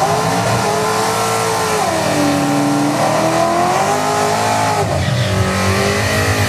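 Drag car doing a burnout at the start line: the engine is held at high revs while the rear tyres spin and smoke. The revs sag about two seconds in, then climb and hold again.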